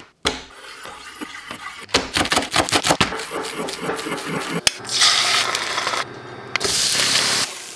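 Rapid knife strokes chopping leafy greens on a wooden cutting board, then hot oil sizzling as an egg fries in a pan; the sizzle starts about five seconds in, dips briefly, and comes back louder near the end.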